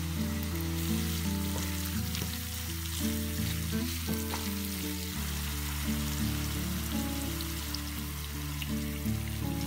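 Spiced chicken and chilli sauce sizzling in a nonstick frying pan as it is stirred with a wooden spatula, under instrumental background music with held notes and a steady bass line.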